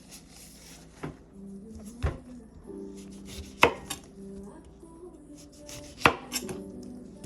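Knife chopping on a cutting board: a handful of separate, irregularly spaced knocks, the two loudest in the second half.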